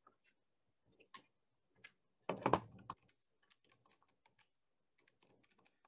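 Keys tapped, typing: a few scattered keystrokes, a quick run of louder ones about two and a half seconds in, then only faint taps.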